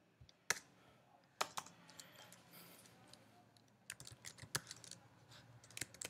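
Keystrokes on a computer keyboard: a few scattered key presses, then a quicker run of typing from about four seconds in.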